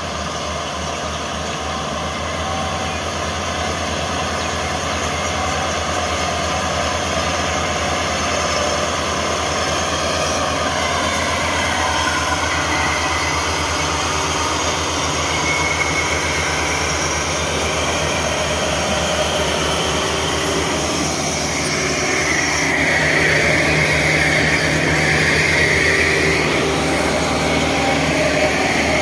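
Massey Ferguson 385 tractor's four-cylinder diesel engine running steadily under load as it pulls a heavily loaded sugarcane trolley, growing louder about two-thirds of the way through.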